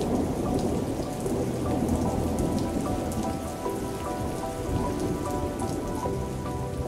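Steady heavy rain pattering on surfaces, with soft background music of long held notes underneath.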